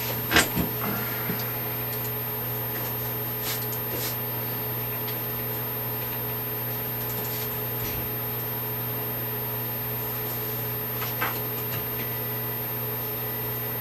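Steady low room hum with a few fixed tones, such as from a fan or air handling, broken by a few soft clicks and handling noises.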